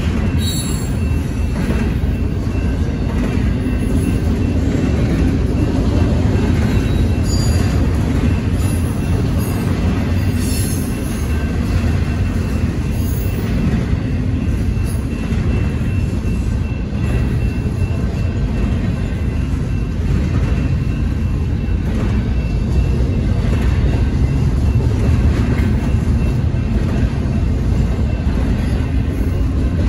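Double-stack intermodal container well cars of a Union Pacific freight train rolling past: a steady rumble of steel wheels on rail.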